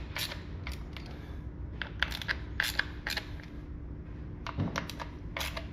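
Scattered clicks and light metallic taps, in short irregular clusters, from a hand tool snugging up the screws of the round derby cover on a Harley-Davidson Dyna's primary case.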